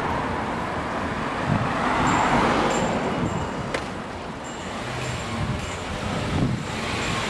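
City street traffic heard from a moving bicycle, a steady wash of car and road noise with wind buffeting the microphone.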